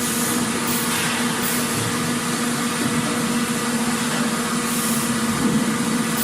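Factory machinery ambience: a steady low electrical-sounding hum with an overtone above it, over a constant wash of machine noise, with a soft hissing swell about a second in and again near the end.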